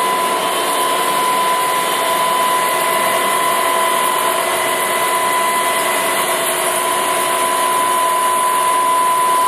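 Zipper-making machine running: a steady mechanical hum and rush with a constant high-pitched whine.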